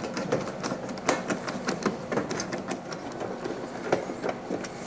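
Screwdriver backing the screws out of a main electrical panel's cover: a run of small, irregular clicks and ticks, several a second.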